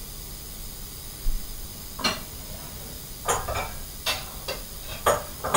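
A knife blade being handled and shifted under a microscope: a steady low hiss, then from about two seconds in a series of about seven short taps and scrapes.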